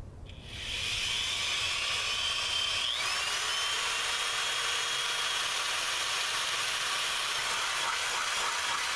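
Power drill running with a number 8 bit, drilling a hole through the metal battery tray: a steady whine from about half a second in, shifting up in pitch about three seconds in.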